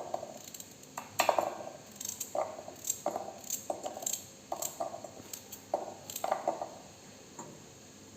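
A knife cutting carrots into pieces and knocking against the board, about a dozen short knocks and clinks at uneven intervals, as the carrots are cut up and their cores removed.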